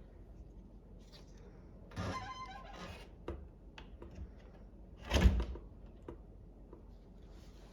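Handling noises: scattered clicks and a rustle, then one heavy thunk about five seconds in.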